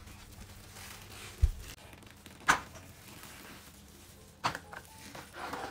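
A few handling knocks and clicks in a small room: a dull thump about one and a half seconds in, then a sharp click a second later and another near the end.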